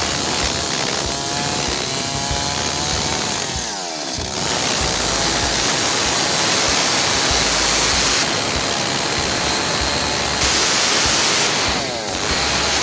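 Stihl MS 382 two-stroke chainsaw running hard as it cuts through a felled tree trunk. The engine note drops briefly about four seconds in and again near the end, then picks back up.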